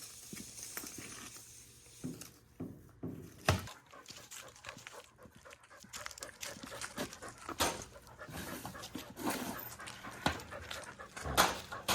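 A dog panting close by, with scattered knocks and scrapes, one sharper knock about three and a half seconds in.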